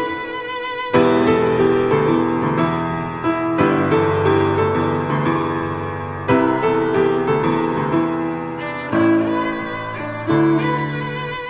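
Instrumental background music of bowed strings with piano, held notes changing about once a second, swelling louder about a second in.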